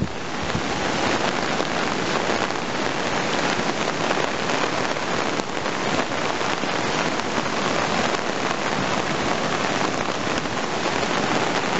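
Heavy rain pouring steadily onto a paved road and surrounding trees, blended with the rush of a flooded, overflowing river.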